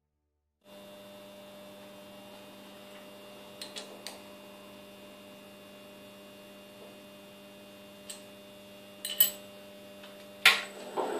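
Milling machine standing with a steady electrical hum, and a few light clicks as the boring head is handled. Near the end a louder click as the control switch is turned, and the spindle motor starts to run up.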